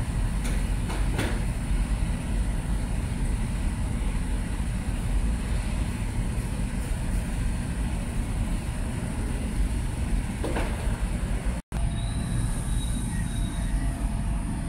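Steady low rumbling background noise with a faint high whine above it, broken by a sudden brief dropout about twelve seconds in.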